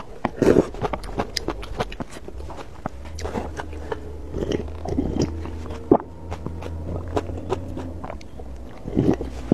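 Close-miked eating sounds: noodles slurped off chopsticks, then spicy noodle broth sipped and swallowed straight from a plastic cup, with wet mouth clicks and chewing.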